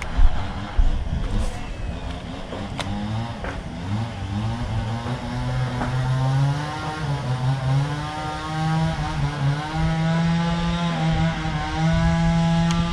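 A small engine running steadily, its pitch wavering slightly and growing a little louder from about four seconds in, with a few sharp clicks in the first seconds.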